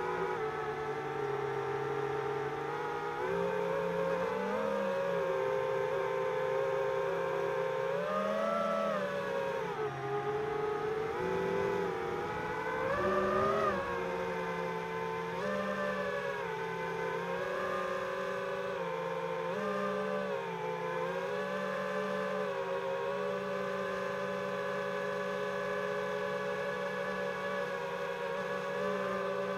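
GepRC Mark4 5-inch FPV quadcopter's brushless motors and propellers whining, the pitch rising and falling as the throttle changes, with a louder surge about halfway through.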